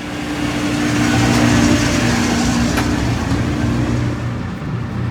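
Car engine running and the vehicle moving, with a steady drone and a broad rush of noise that grows over the first second and then holds steady.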